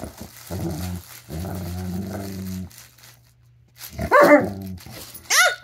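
German Shepherd growling in play while tugging on a plush toy: low rumbling growls, the longest lasting over a second, then a sharper, higher sound about four seconds in and a short falling one near the end.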